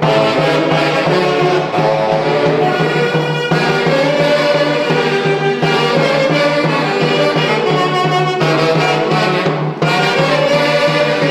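Live Santiago festival music from the central Peruvian Andes, played by a small band: saxophones and a violin carry the melody over a drum.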